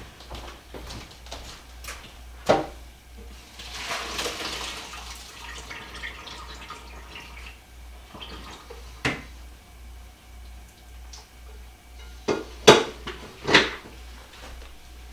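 Kitchen sink tap running for a few seconds, with sharp clatters of dishes and pans being handled in the sink, the loudest cluster near the end.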